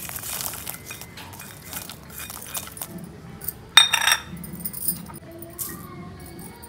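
Peeled garlic cloves dropping and clattering into a steel mixer-grinder jar, then a loud ringing metal clink against the jar about four seconds in.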